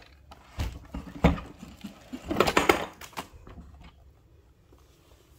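Hands rummaging inside a sewing machine's carrying case, knocking against the machine and case. A few sharp knocks in the first second and a half, then a second of scraping and rustling between about two and three seconds in.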